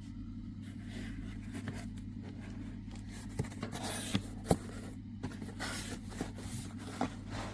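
Handling noises from the drill kit's items being moved about: a few sharp clicks and light scraping over a steady low hum.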